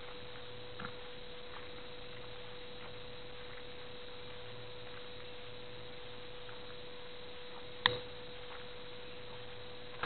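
A steady mid-pitched hum over a faint hiss, with two sharp clicks, one about eight seconds in and one at the end.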